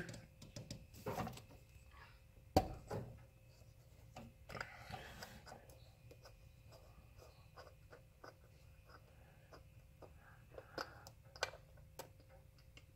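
Faint scattered clicks and light rubbing as a hand unscrews a wing nut on an AMC 327 V8's valve cover and handles the plastic spark-plug-wire separator, with one sharper click about two and a half seconds in.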